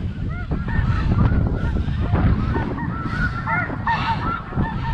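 Many snow goose calls overlapping, short rising-and-falling honks that come thickest about three to four seconds in, over a steady rumble of wind on the microphone.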